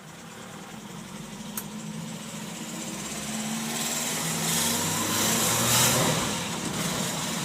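Opel Kadett B's tuned 1.2 S OHV four-cylinder engine running under way, growing louder over the first six seconds and then easing slightly, with rising road and wind noise. It carries an odd noise that the owner fears may be a bearing.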